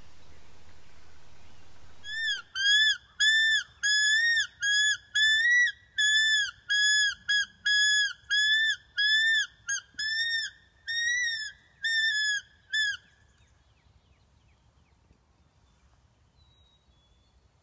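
Predator distress call blown in a rapid series of about twenty high, wailing notes, roughly two a second, each rising and then falling slightly in pitch, before it stops. It imitates a prey animal in distress to draw coyotes in.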